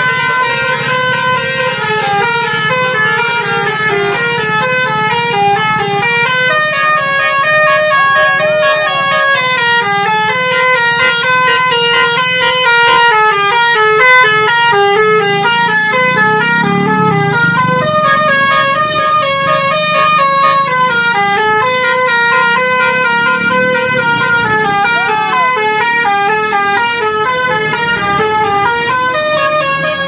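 Telolet basuri musical air horn on a tour bus playing a fast, continuous melody of short stepped notes, over the low sound of bus engines.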